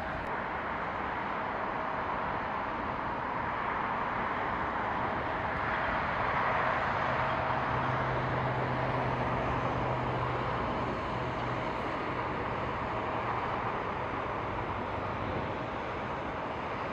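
Distant jet engines of airliners taxiing at an airport, a steady hiss with a faint steady whine, swelling briefly in the middle with a low hum underneath.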